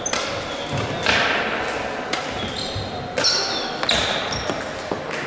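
Crossminton rally: sharp racket strikes on the speeder about once a second, with short shoe squeaks on the hall floor, echoing in a large sports hall.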